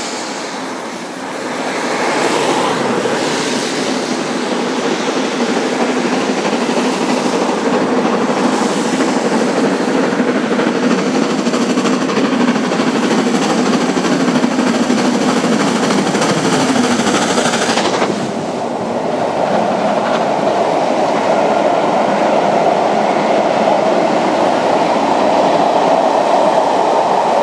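GWR Castle class four-cylinder steam locomotive 5043 Earl of Mount Edgcumbe working hard at speed, its exhaust growing louder as it approaches. About eighteen seconds in the engine passes beneath and the sound drops suddenly, giving way to the steady rumble and clatter of its coaches' wheels running past.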